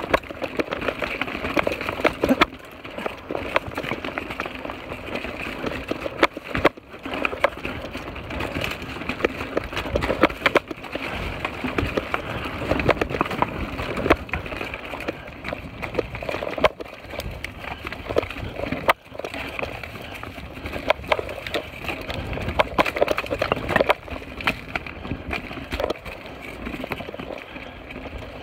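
Mountain bike ridden over a rough dirt and rock trail: a continuous clatter of tyres on dirt and leaves, with frequent sharp knocks and rattles as the bike hits rocks and roots.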